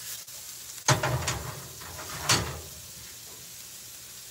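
Onion and garlic sizzling in a skillet on a gas stove, with a few sharp knocks about a second in and again a little past two seconds as the pan is shaken and set back on the burner grate.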